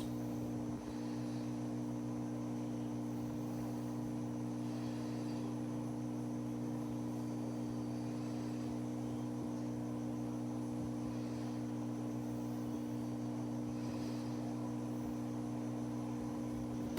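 Steady low electrical hum that holds one pitch with several overtones and does not change.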